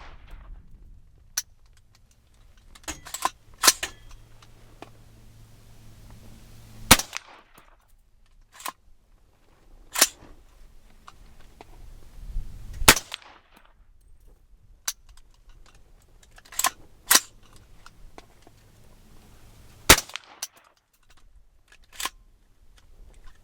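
A 300 Blackout semi-automatic rifle firing Lehigh Defense subsonic rounds one at a time. Several sharp shots come a few seconds apart, with fainter clicks and clacks between them. The rounds are not cycling the action.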